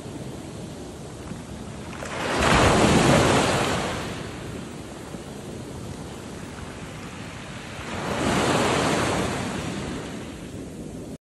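Small sea waves breaking and washing up a sand-and-pebble shore, with two louder surges about six seconds apart, and wind on the microphone. The sound cuts off suddenly just before the end.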